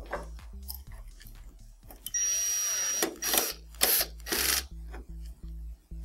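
Electric screwdriver driving the mounting screws of a TV power supply board. It runs steadily with a high whine for about a second, then gives three short bursts. Background music plays underneath.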